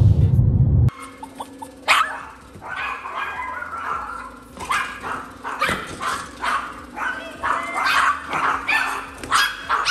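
Background music that cuts off about a second in, then a small dog barking repeatedly in short barks, roughly two a second.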